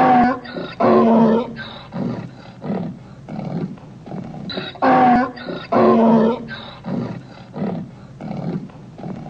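Donkey braying twice. Each bray opens with a couple of loud rasping hee-haws and trails off into shorter, weaker gasps.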